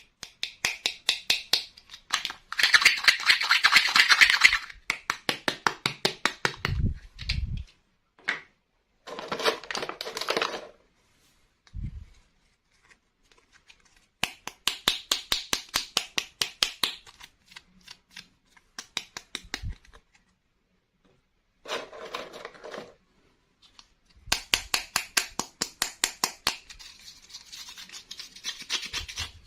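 Toy packaging being opened and handled: repeated bursts of rapid clicking and crinkling, a few seconds each, with a couple of short dull thumps.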